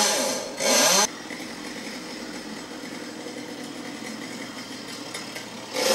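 Chainsaw revving in pruning cuts, then dropping suddenly about a second in to a quieter steady running, and revving up again near the end.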